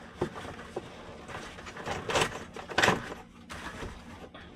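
Handling noise in a truck cab: a light click, then two short rustling bursts and a faint knock as a long rod is moved around.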